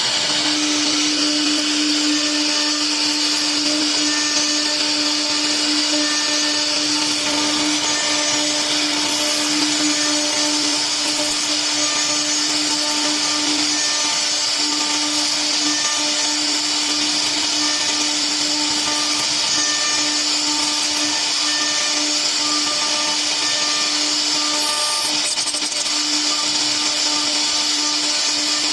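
CNC router spindle running steadily with a constant high whine over a broad hiss of cutting noise, machining a wooden cabinet door.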